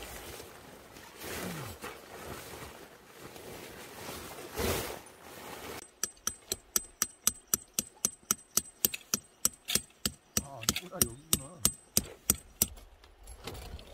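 Metal tent pegs being hammered into gravel: a quick run of sharp, ringing metal-on-metal strikes, about four a second, starting about six seconds in and stopping shortly before the end. Before it, rustling of tent fabric being spread over the stones.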